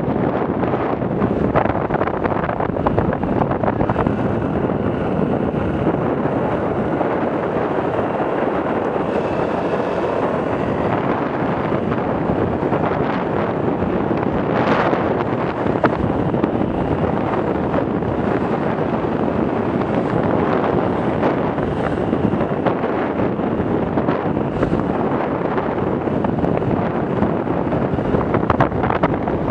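Steady wind rush on the microphone of a camera on a Yamaha YBR 125 motorcycle riding at road speed, with the bike's engine and road noise blended in underneath. A brief louder gust comes about halfway through.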